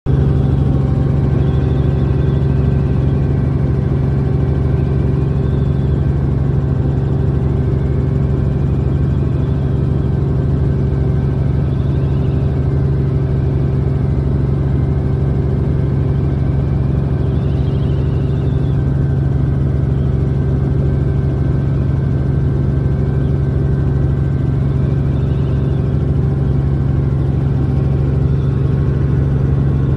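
Helicopter engine and rotors running steadily in flight: a loud, constant low drone with no change in pitch.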